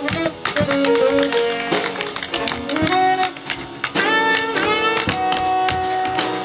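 Tap shoes clicking in quick rhythms on a wooden stage floor over live jazz, with a tenor saxophone holding long melody notes and piano and drums accompanying.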